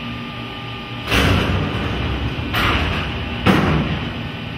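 Three heavy thumps, about a second, two and a half seconds and three and a half seconds in, each with a short rumbling tail, over a steady electrical hum.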